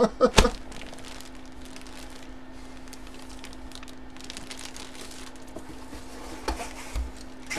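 Clear plastic bag crinkling as a bagged jersey is handled and set aside, with a couple of sharp knocks just after the start and soft bumps near the end.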